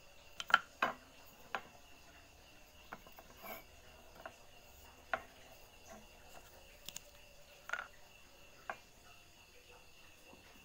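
Irregular sharp clicks and light knocks as a steel bandsaw blade is handled over a wooden bench, about nine in all, the loudest in the first second. A faint steady high-pitched hum runs behind them.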